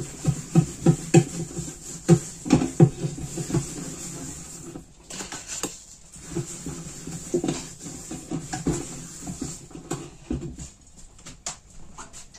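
Hands working salt into a small round of brynza cheese on a kitchen counter: runs of quick, soft, dull thumps and rubbing, about three a second, pausing in the middle.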